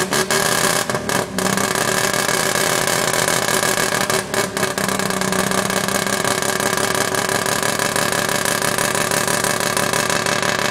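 Mazda 13B rotary engine in a 1971 Datsun 1200 coupe idling steadily after being revved. The sound breaks briefly a few times in the first second and a half and again about four seconds in.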